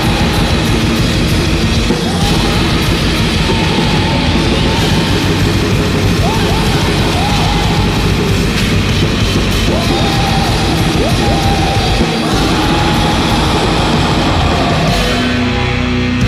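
Blackened war metal: a dense wall of distorted guitars and drums played without a break, with short gliding lines heard over it now and then.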